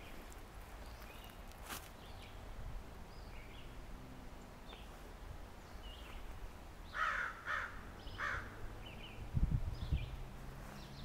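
Small birds chirping now and then, with three louder bird calls in quick succession about seven seconds in. Footsteps on leaf litter come near the end.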